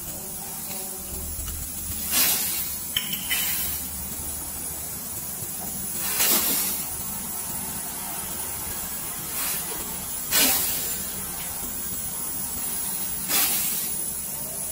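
Short bursts of hissing gas, five or six of them a few seconds apart, as the refrigerator's copper refrigerant tubing is blown out to clean it. A steady low hum runs underneath.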